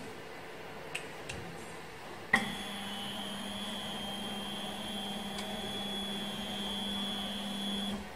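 A4 UV flatbed printer's bed motor driving the print platform with a metal tin on it. A click about two seconds in, then a steady motor hum with a high whine, which stops near the end.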